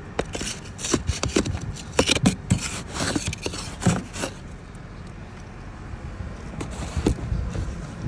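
Plastic ice scraper and snow brush scraping and brushing snow and ice off a car's side mirror and body: a quick run of irregular scraping strokes in the first half, then quieter, with a few more strokes near the end.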